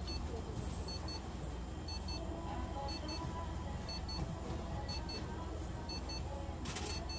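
An electronic device beeping: short, high double beeps about once a second, over a steady low hum.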